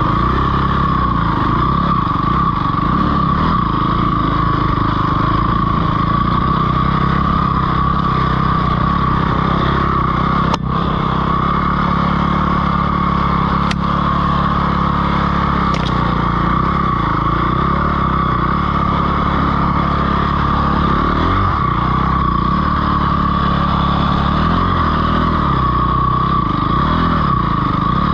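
Dirt bike engine running steadily while riding a trail, its pitch rising and falling with the throttle toward the end.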